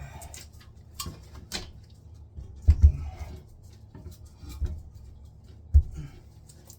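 Irregular clicks, knocks and low thumps from hands working at a toilet's base and its closet bolts while it is set and lined up on the flange. The loudest is a pair of thumps about three seconds in.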